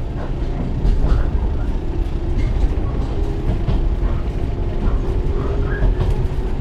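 Running sound inside a 115 series electric multiple unit motor car, MoHa 115-1031: the steady low rumble of the train under way. A faint steady whine comes in over the second half, along with a few light knocks.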